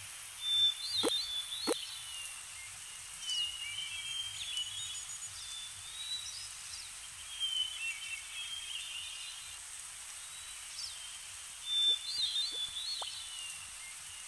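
Outdoor birdsong ambience of high chirps and short whistles over a steady hiss, with a few quick falling whistles in the first two seconds. The pattern recurs about 11 seconds later, as a looped nature track.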